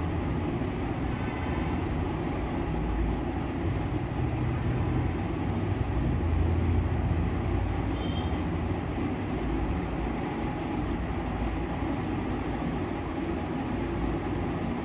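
Steady low rumbling background noise, with no clear events in it.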